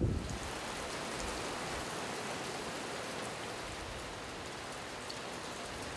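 Steady rain falling, an even hiss with nothing else standing out.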